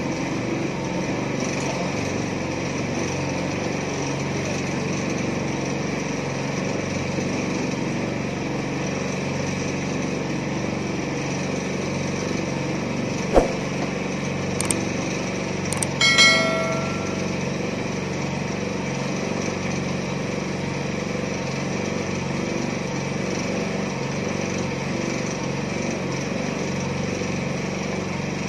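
Small petrol engine of a mini concrete mixer running steadily. About halfway through there is a sharp knock, and just after it a short, ringing metal clang.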